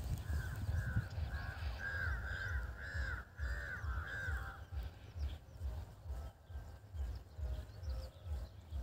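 A bird calling in a quick series of about ten short arched notes, which stops about four and a half seconds in, over a low pulsing rumble.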